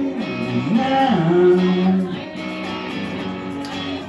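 Male voice singing a long held note that slides down and back up in pitch, over a strummed electric guitar.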